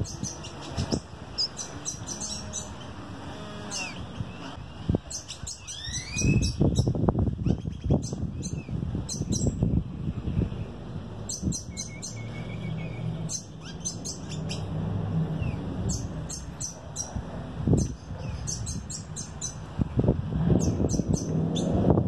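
Small songbirds chirping: quick clusters of short, high chirps with a few gliding whistled notes mixed in. A low rumble on the microphone comes and goes underneath.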